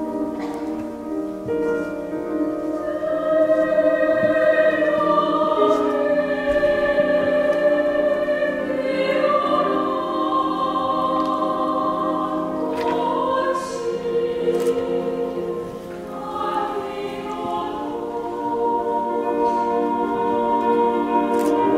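Mixed choir singing long, held chords in a choral lament, with orchestral and piano accompaniment. The sound swells louder about three seconds in and eases briefly near sixteen seconds.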